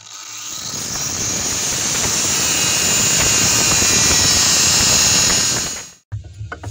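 Angle grinder running up to speed over about a second, then cutting steadily into a steel bolt head with a high whine and hiss, grinding off a bolt head that is irredeemably rounded off. The sound cuts off suddenly near the end.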